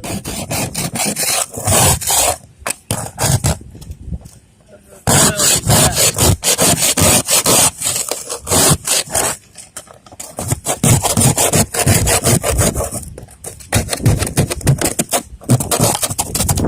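Ice scraper scraping ice off a car's windows in runs of quick back-and-forth strokes, with brief pauses between the runs.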